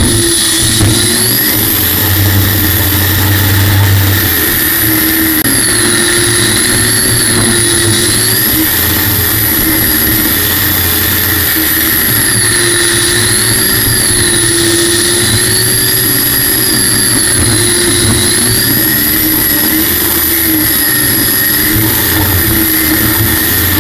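Racing jet boat's General Electric helicopter gas-turbine engine running at speed: a loud, steady turbine whine whose pitch wavers gently up and down as the throttle changes, over a steady rushing noise.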